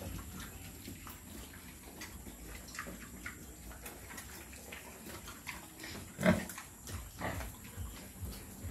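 Quezon Black sows grunting as they root for food on a concrete pen floor: a few short grunts, the loudest about six seconds in.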